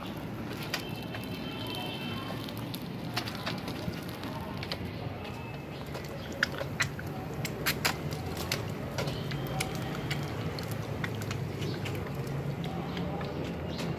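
Large blaze of burning matchstick bundles crackling, with scattered sharp pops and snaps over a steady low rush of flame.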